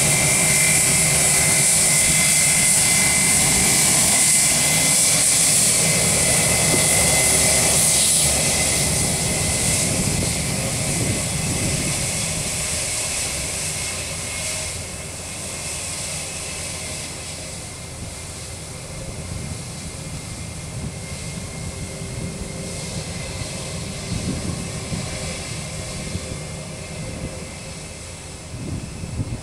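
The IAE V2500 jet engines of an Airbus A320-232 whine at taxi power as the airliner taxis. The high whine is loudest for the first eight seconds or so, then fades and settles to a lower, steady rumble as the jet moves off.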